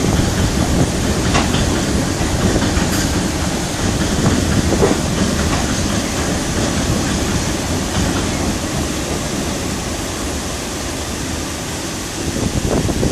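Empty coal hopper wagons of a freight train rolling over a steel girder bridge, heard from beneath it: a steady rumble with occasional clacks from the wheels, easing a little near the end as the last wagons pass.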